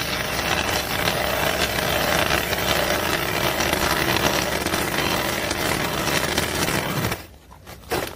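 Ice auger boring a hole through pond ice, its blades cutting steadily through the ice and throwing out chips. The drilling stops about seven seconds in, followed by a few brief knocks.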